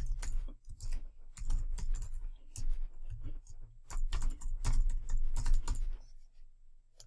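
Typing on a computer keyboard: an irregular run of quick key presses for about six seconds, then stopping.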